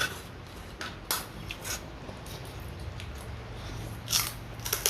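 Someone chewing crunchy food close to the microphone: irregular crisp crunches, a cluster in the first two seconds and more near the end.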